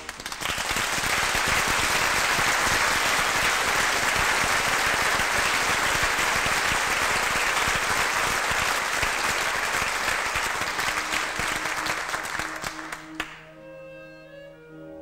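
Audience applauding steadily. The applause fades and cuts off about thirteen seconds in, and the orchestra then starts again softly with sustained string notes.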